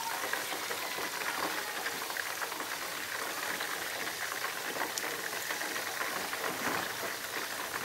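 Chicken drumsticks frying in hot cooking oil in a frying pan: a steady sizzle and bubbling of the oil.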